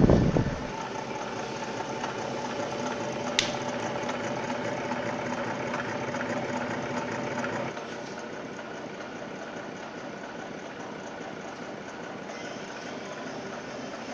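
E-MAG generator unit running under load with a steady mechanical hum, a standing fan running alongside it. A low thump at the very start, a brief click about three and a half seconds in, and the hum a little quieter after about eight seconds.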